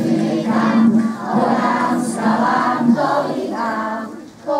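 A group of young kindergarten children singing a song together in chorus, with a short break between phrases near the end.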